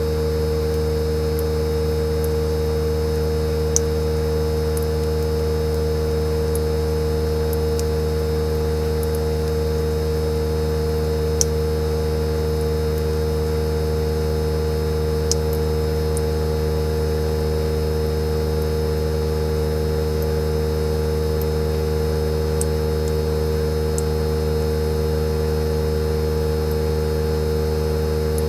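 Fujitsu General AO-C28H air-conditioner outdoor unit running in defrost mode, its inverter compressor humming steadily with a clear whining tone over a low drone. A few sharp ticks sound over it.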